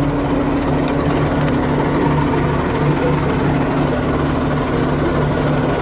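Heavy engine idling steadily, a low even drone with a slight regular pulse.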